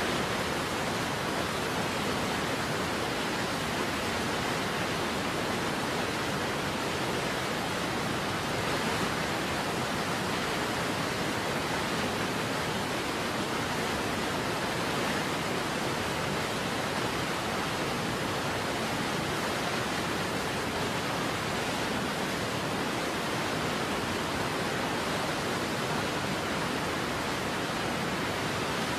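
Steady, unchanging rush of waterfall noise, an even roar with no breaks.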